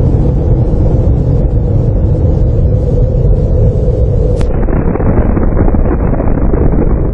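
Deep, steady rumble of a nuclear explosion, loud and continuous. About four seconds in there is a short click, after which the rumble sounds duller.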